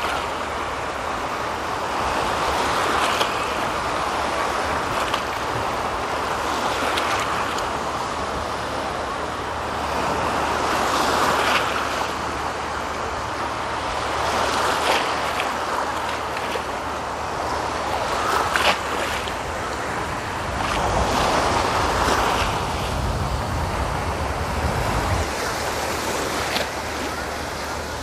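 Small Black Sea waves breaking and washing over the shallows, the surf swelling and easing every three to four seconds. Wind rumbles on the microphone over the last several seconds.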